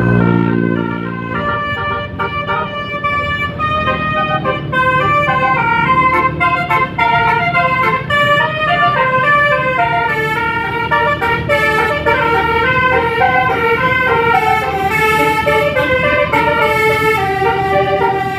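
Bus 'basuri' telolet horn, a set of musical air horns, playing a fast stepping melody on several tones at once over a low rumble, with a deeper horn tone in the first second.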